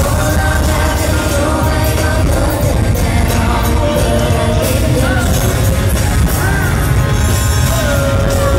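Pop song playing, with a voice singing over a steady, full backing track.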